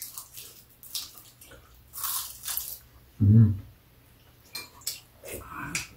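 People eating soup at a table: repeated short slurps and chewing sounds. About three seconds in comes a brief loud voiced murmur, the loudest sound here.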